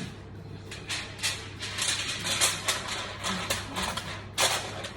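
Aluminium foil crinkling and rustling in quick irregular crackles as it is handled and folded.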